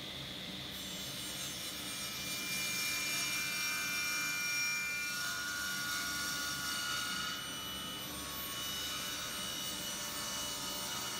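Sliding table saw running and cutting a walnut board fed on its sliding carriage: a steady machine noise with high whining tones that come in about a second in and are loudest in the middle.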